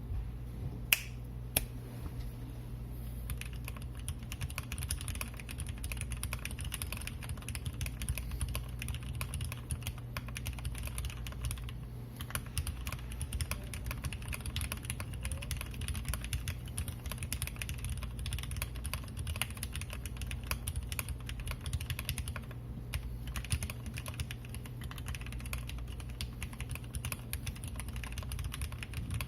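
Steady, fast typing on a 60% mechanical keyboard with lubed Cherry MX Vintage Black linear switches on an aluminium plate, with PBT keycaps. A few separate sharp key clacks come about a second in, and dense continuous typing starts at about three seconds.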